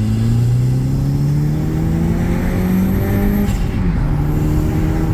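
Audi TT's turbocharged 1.8T four-cylinder engine pulling under acceleration, heard from inside the cabin, rising steadily in pitch. About three and a half seconds in the pitch dips briefly, then holds steady.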